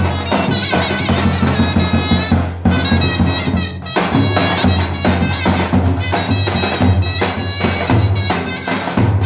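Turkish davul and zurna playing together: the zurna's reedy, piercing melody over regular beats of the davul bass drum, with a brief break in the sound about two and a half seconds in.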